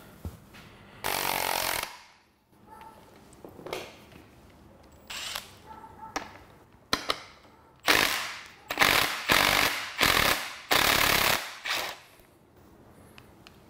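Impact wrench hammering in short bursts: one about a second in, then four in quick succession in the second half, undoing a nut on the shock absorber (strut) assembly.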